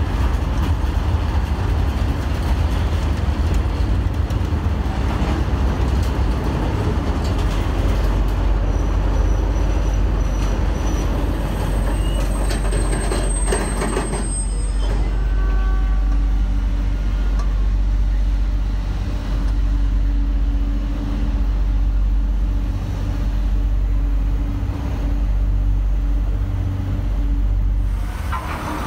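An SNCF train on the station tracks: a loud, dense rumble for about the first half, a brief high-pitched squeal about halfway through, then a steadier hum with a low held tone.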